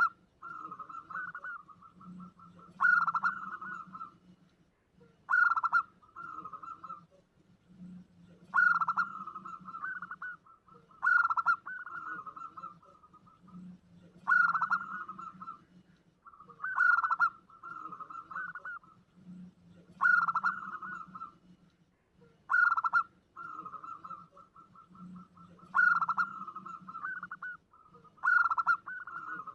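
Zebra dove (perkutut) calling repeatedly in a lure recording, about every three seconds. Each call is a loud opening note followed by a rapid run of short coos.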